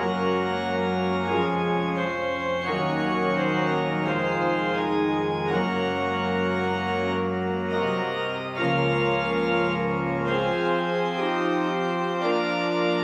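Church organ playing slow, sustained chords that change every second or two over a deep pedal bass; the bass drops out about eleven seconds in.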